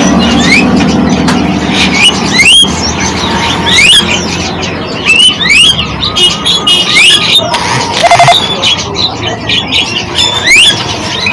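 Many birds chirping at once: quick rising chirps, over and over, with a louder, lower call about eight seconds in.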